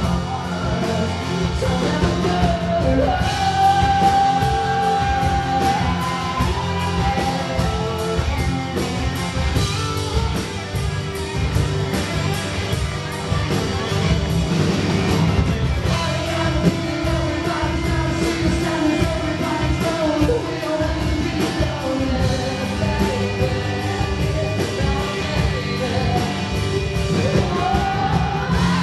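Live rock performance, recorded from the crowd: a male voice sings loudly over a strummed acoustic guitar and a band with drums.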